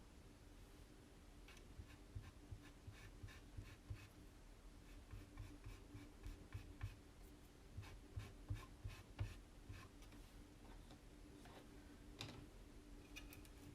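Faint, quick scraping strokes, about two or three a second, of chalk paste being worked over a Chalk Couture transfer on a tag, with soft low taps on the work surface; a steady low hum runs underneath.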